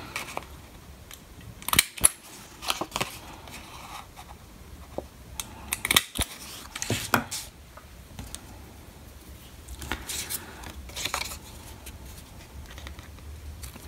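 Small handheld single-hole punch clicking as it punches holes through black card, two sharp clicks about two seconds in and again about six seconds in, with paper and card rustling between.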